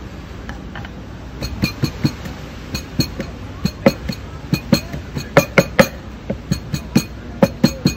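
A quick, irregular run of sharp clinks and knocks, each with a short glassy ring, coming thicker and louder from about halfway through.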